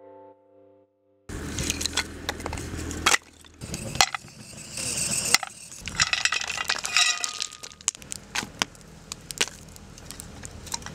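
Music fades out. About a second in, a wood fire in an earth pit starts crackling, and several louder knocks are heard as wooden planks are stacked onto it.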